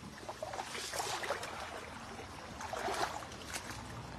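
Shallow stream water trickling and splashing around wading legs, with irregular louder splashes.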